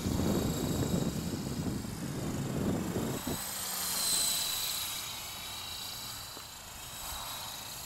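Small electric RC helicopter (modified Esky Honey Bee fixed-pitch, Slo-Max 300 main motor and GWS direct-drive tail motor) flying, a high steady whine from its motors and gears that swells about four seconds in as it passes close and then fades as it moves off. A rough low rumble runs underneath through the first three seconds.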